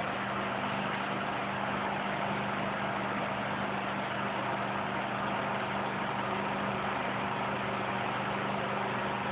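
Steady background hiss with a low, even hum, unchanging throughout, cutting off suddenly at the end.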